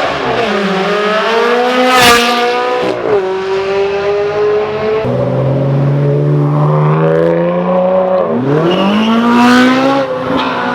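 Supercar engine revving hard and accelerating, its pitch climbing and then dropping sharply at gear changes. There is a brief loud crack about two seconds in, and a steep, loud climb in revs near the end.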